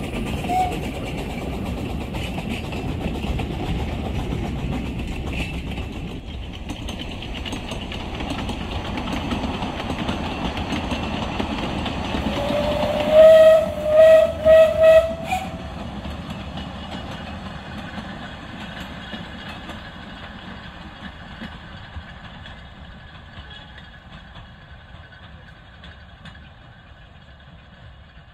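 Narrow-gauge steam train running past, its carriages rumbling and clattering on the track. About halfway through, the steam locomotive's whistle sounds a short rising note and then four short blasts. The running sound then fades as the train draws away.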